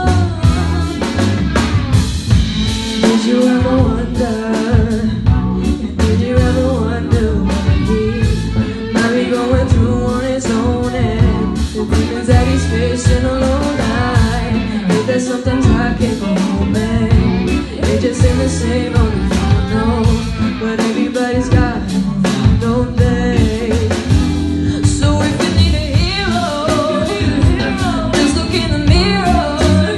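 A live band playing a song: female voices singing over drums, electric bass, guitar and keyboard.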